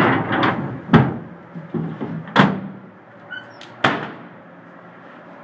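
A wooden drawer sliding shut with a rough scrape, then three sharp slams about a second and a half apart as the back of the pickup is shut up.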